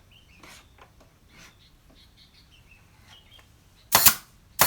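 Nail gun firing twice near the end, two sharp shots about half a second apart, fixing the corners of a wooden bed frame. Faint bird chirps come before the shots.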